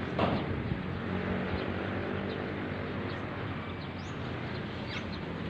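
Steady outdoor background with a low hum, a single knock just after the start, and a few faint bird chirps about four to five seconds in.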